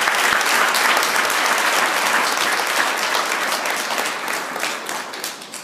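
A roomful of people applauding, dense steady clapping that tails off near the end.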